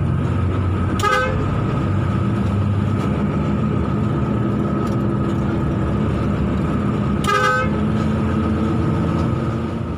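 Intercity bus engine running hard and steady, heard from inside the front of the bus, with a steady whine over it. A vehicle horn gives two short blasts, about a second in and again about seven seconds in, the second a little longer.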